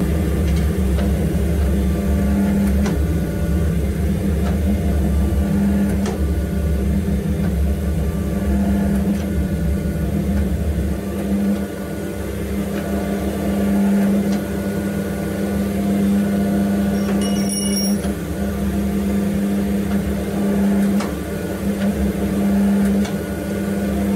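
Coal Iron Works 12-ton hydraulic forging press running: its electric motor and hydraulic pump give a steady loud hum while the flat dies squeeze a red-hot 15 mm round bar. The hum's higher note swells and fades several times, with a few faint clicks.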